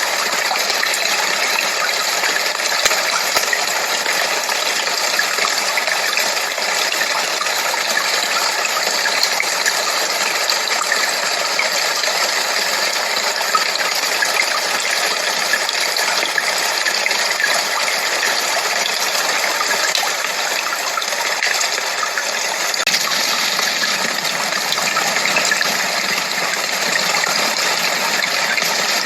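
Steady white-noise-like rushing hiss with no low rumble, even in level and unchanging, played as a tinnitus masker.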